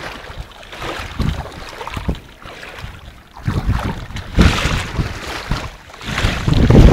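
Wind buffeting the microphone in uneven gusts, with the strongest gust near the end.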